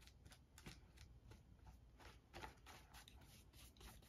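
Faint, irregular scratchy swishes of a flat paintbrush stroking paint across a paper notebook page.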